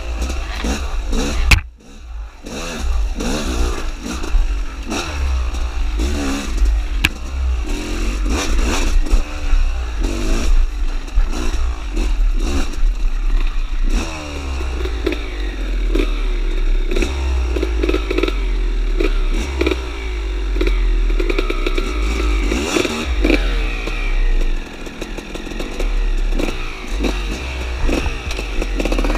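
Dirt bike engine being ridden on a rough trail, the revs rising and falling again and again as the throttle is opened and closed, over a steady low rumble. One sharp knock about a second and a half in.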